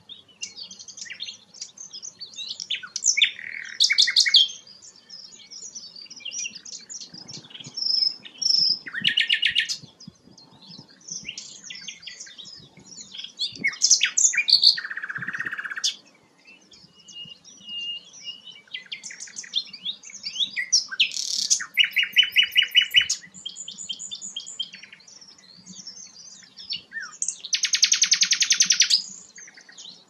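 Common nightingale singing: varied phrases of chirps and whistles, broken every few seconds by loud, fast, rattling trills, the loudest and buzziest near the end.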